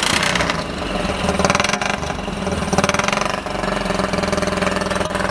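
Harbor Freight Predator 6.5 hp single-cylinder engine firing up and running steadily at idle through a homemade exhaust and muffler.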